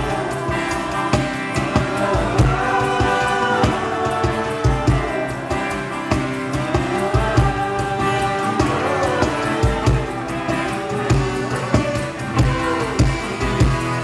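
Live band music between sung lines: drums keep a steady beat under bass and melodic lead lines.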